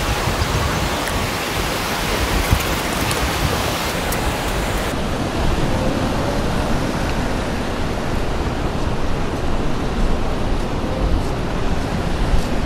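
Steady rushing noise of wind blowing across the microphone, mixed with ocean surf breaking.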